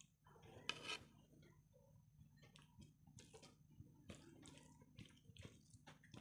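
Faint eating sounds: dal poured from a small glass bowl onto a plate of rice, then fingers mixing rice and dal in short, soft, wet squishes and light taps, with one slightly louder sound about a second in.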